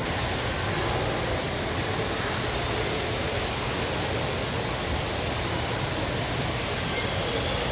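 Steady rushing noise, even across low and high pitches and unchanging throughout.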